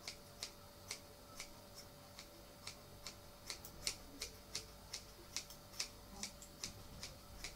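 Scissors snipping hair: faint, short, crisp clicks about two to three a second, coming closer together in the second half.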